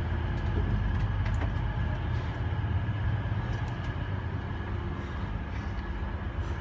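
Steady low rumble and hum inside a passenger train carriage, with a couple of faint clicks in the first few seconds.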